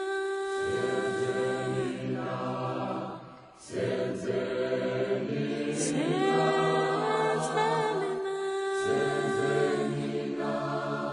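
A choir singing a cappella in harmony, in long held chords, with a short break about three and a half seconds in.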